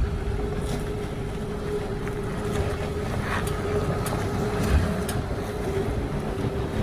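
A vehicle engine running steadily, with a low rumble and wind noise on the microphone.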